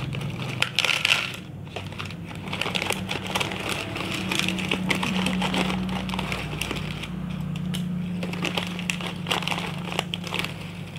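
Crinkling and crackling of a grey anti-static plastic bag full of LEDs as it is handled and worked open, a steady run of small crackles.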